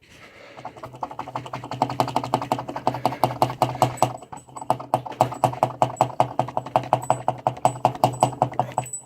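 Rapid metallic clicking and knocking, about four a second, as the clutch basket is rocked backwards and forwards on its inner bearing sleeve to work the sleeve off the gearbox shaft. A steady low hum runs underneath.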